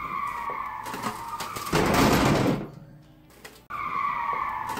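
Tyre-screech sound effect: a squeal about a second and a half long, sliding slightly down in pitch, then a short, louder rush of car noise, the whole clip played twice in a row.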